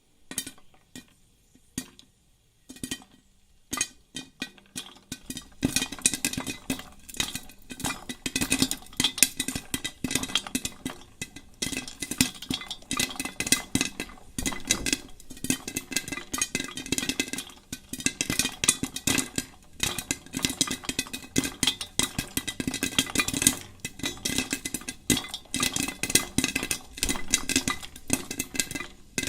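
Popcorn popping: a few scattered pops at first, then from about five seconds in a fast, dense run of pops that keeps going.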